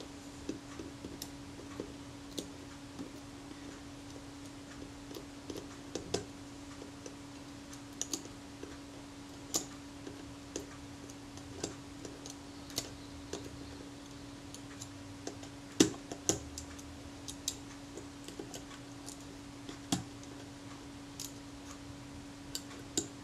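Small, irregular metallic clicks and taps as steel tweezers and fingers fit small parts into the Rolleiflex Automat's exposed wind mechanism, around a toothed gear and its ratchet pawls. The sharpest clicks come about 16 and 20 seconds in, over a faint steady hum.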